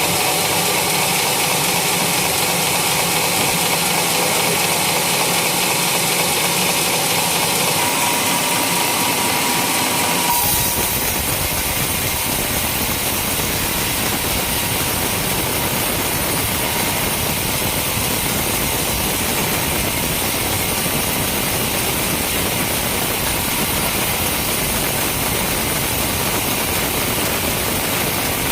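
Sawmill running steadily while sawing a coconut palm trunk. About ten seconds in the sound changes abruptly, becoming fuller and deeper.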